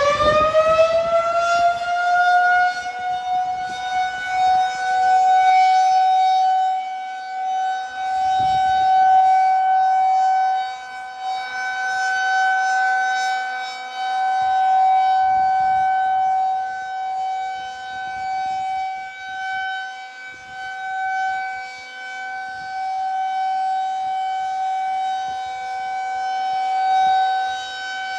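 Federal Signal 2001-SRNB rotating outdoor warning siren sounding its steady alert tone for a scheduled test, heard from inside a car. It finishes winding up in the first second or two, then holds one pitch whose loudness swells and fades every few seconds as the siren turns.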